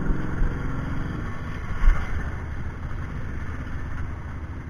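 Four-wheeler (ATV) engine running, its even pitch clear for about the first second before settling into a low rumble, with one loud thump about two seconds in.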